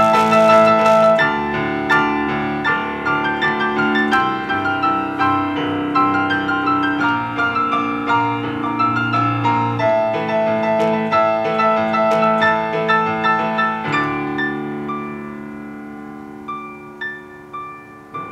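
Roland V-Piano digital piano played solo, with flowing chords and a melody. After about 14 seconds it thins to a few soft, separate high notes and grows steadily quieter.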